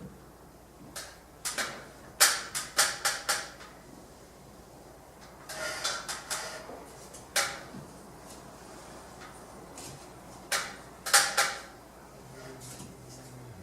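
Sharp clinks and knocks of hard pieces being handled, in small groups: a quick run of four or five about two seconds in, a cluster around six seconds, and another pair near eleven seconds, from gypsum imitation-stone tiles and tools during tiling.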